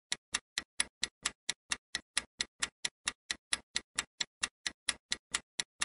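Clock-tick sound effect of a quiz countdown timer, counting down the time to answer: sharp, evenly spaced ticks, about four a second.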